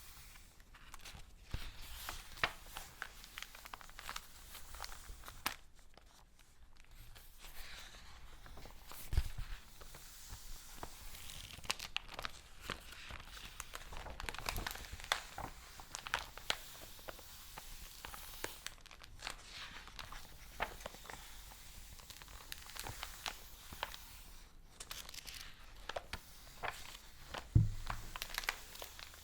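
Paper handled close to the microphone: crinkling and rustling with many crisp crackles, and two heavier thumps, one about nine seconds in and one near the end.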